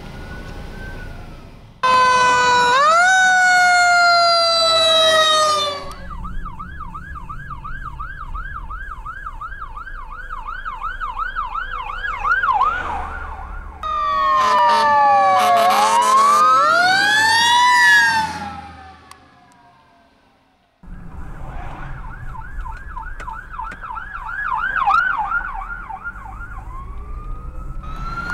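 Emergency vehicle sirens in a run of short clips. First comes a loud wail sweeping slowly up and down in pitch. Then a fast yelp warbles about three times a second, followed by a second loud wail with two tones crossing in pitch that fades away, and another yelp. Road and engine noise sit beneath.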